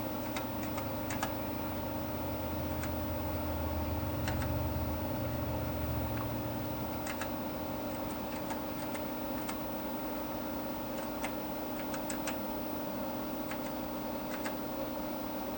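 Irregular single clicks of computer keys being pressed, one at a time with uneven gaps, over a steady electrical hum. A low rumble runs under the first six seconds.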